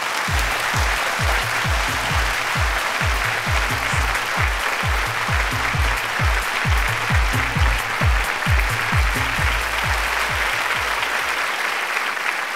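Audience applauding over background music with a steady deep drum beat of about three beats a second; the drum stops about ten seconds in while the clapping goes on.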